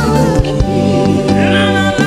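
Live gospel worship music: sustained keyboard chords and a steady bass with a couple of drum hits, and a man's voice coming in during the second half with a held, wavering note.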